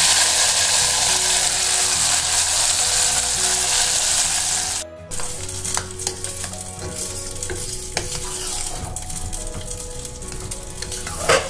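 Hot ghee with fried cashews poured into a pot of thick rice-and-lentil akkaravadisal, sizzling loudly for about five seconds as the tempering goes in. After a brief break, quieter sizzling as a slotted ladle stirs and scrapes the pudding in a pressure cooker, with small clicks.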